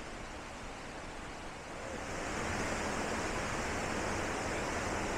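Waterfall rushing, a steady, dense sound of falling water that grows louder about two seconds in.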